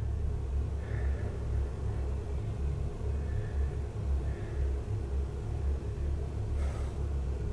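Steady low rumble with a faint steady hum above it: the room's background noise, with no distinct event.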